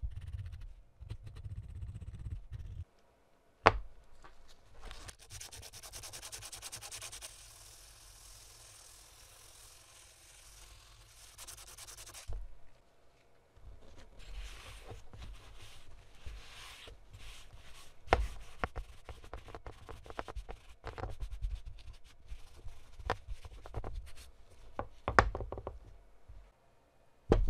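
Hand rubbing and sanding strokes on a metal gun part, with a long stretch of fine hissing scraping partway through and several sharp clicks and knocks as parts or tools are set down.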